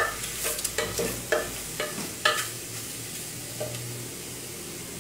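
Beef cubes sizzling in a hot, dry pressure cooker while a wooden spoon stirs them, knocking against the pot about twice a second. The knocks stop a little over two seconds in, leaving the steady sizzle of the meat searing without oil.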